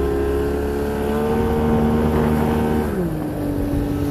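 Mariner outboard jet motor running under way at a steady engine note, then dropping in pitch about three seconds in as it eases off.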